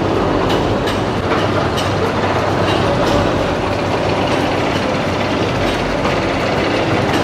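Tea-processing machinery running: a steady mechanical din with light, irregular clicking and rattling.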